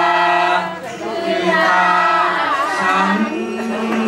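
A man singing a slow song into a microphone, holding long notes; one held note ends about half a second in, a new phrase starts about a second in, and another long note begins near the end.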